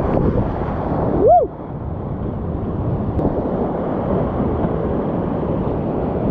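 Whitewater of a steep mountain creek rushing steadily. About a second in, a short pitched call rises and falls once.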